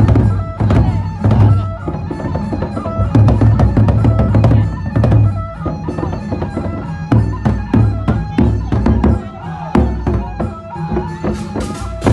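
Gendang beleq ensemble playing: large Sasak barrel drums beaten in a fast, driving rhythm, with sharp metallic percussion strikes and short ringing pitched notes over them.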